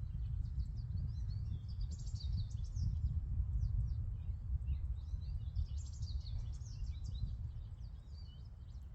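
Songbirds chirping and singing, many short high calls overlapping one another, over a steady low rumble.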